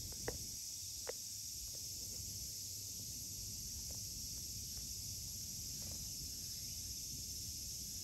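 Steady, high-pitched outdoor insect chorus, with a couple of faint clicks in the first second.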